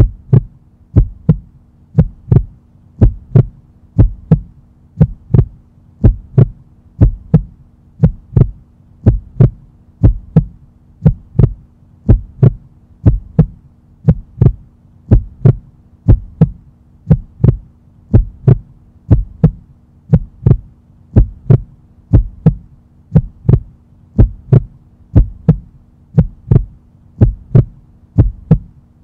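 Heartbeat sound effect: paired low thumps about once a second in a steady rhythm, over a faint steady hum.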